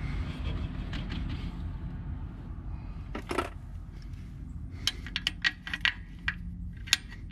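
Sharp metallic clicks and clinks as a hand and tool work at a transmission cooler line fitting on an Allison 1000 transmission: one loud click about three seconds in and a quick run of clinks near the end, over a low steady rumble.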